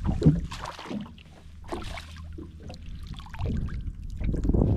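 Water splashing and trickling beside a boat while a freshly caught trout is handled, with scattered small knocks. There is a sharp knock just after the start, and a low rumble swells near the end.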